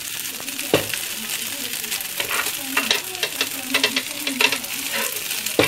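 Rice vermicelli stir-frying in a metal wok: a steady sizzle, with repeated scrapes and clacks of the spatula against the pan.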